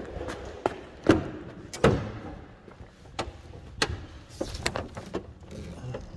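Knocks and bangs of someone climbing up into a Mercedes-Benz truck cab: two sharp bangs about one and two seconds in, then lighter knocks and bumps.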